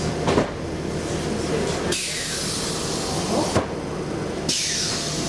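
Two bursts of compressed-air hiss from a vintage A31 tram's air-brake valve, each starting suddenly and lasting about a second and a half. Underneath is the steady low hum of the moving tram, with a few sharp knocks.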